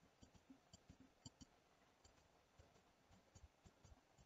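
Near silence with faint, irregular clicks from computer input while the model is being smoothed in the sculpting program.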